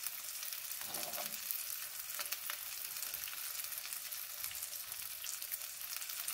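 An egg frying in a pan: a steady, fine sizzle with many small crackles.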